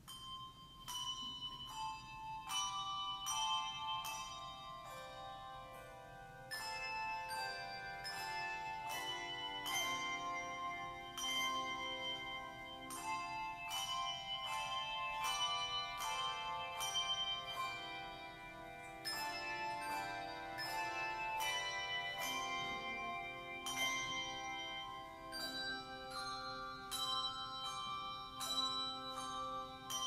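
Handbell choir playing a piece: many struck bell notes, often several at once, each ringing on after it is struck. The playing begins at the very start, out of near silence.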